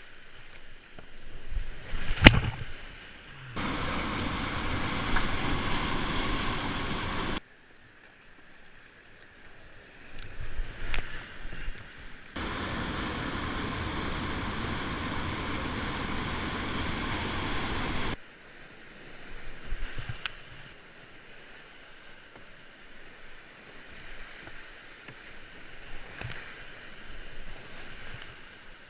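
White-water river rapids rushing, with the steady noise starting and stopping abruptly between cut clips. Two longer stretches of loud, even roar alternate with quieter splashing, wind on the microphone, and a few sharp splashes or knocks of the kayak and paddle.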